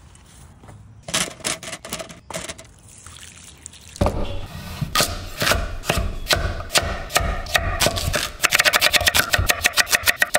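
Chef's knife chopping raw potatoes on a wooden cutting board. It begins about four seconds in as separate knocks of the blade through the potato onto the board, then speeds up to rapid chopping near the end. Before that there are only a few faint scattered clicks.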